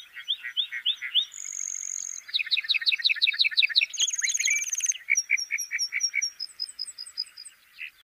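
Lark bunting singing one long, varied song. It opens with a run of slurred notes, then a clear high whistle, a fast series of notes, a buzzy trill about four seconds in, and a closing run of repeated notes.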